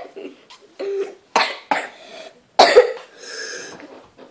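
A girl coughing: a run of short coughs.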